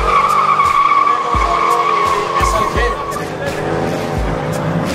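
Rear tyres of a Mercedes-Benz SLK squealing as it launches with wheelspin: a steady high screech that fades out about three seconds in, with the engine revving underneath.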